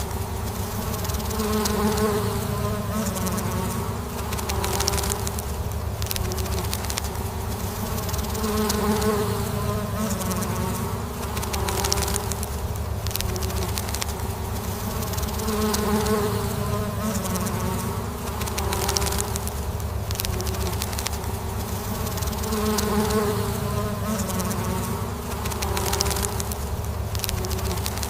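Honeybees buzzing in a steady, gentle hum that swells and eases every few seconds.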